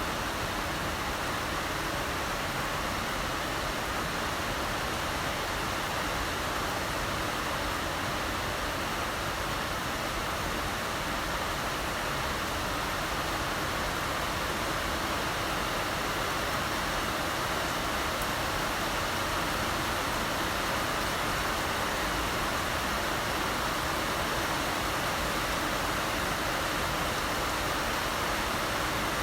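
Heavy rain falling steadily, a dense even hiss with no single drops standing out.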